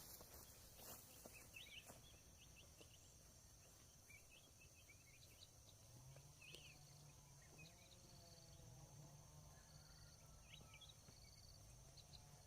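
Near silence: faint field ambience with a steady high insect drone and scattered faint chirps, and a faint low wavering hum in the second half.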